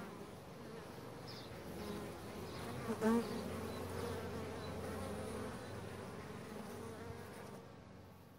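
Many bees buzzing together in a steady hum, fading out near the end, with one brief louder sound about three seconds in.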